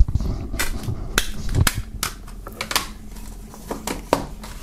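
Plastic CD jewel case being closed and handled, a string of sharp plastic clicks and light knocks, irregularly spaced.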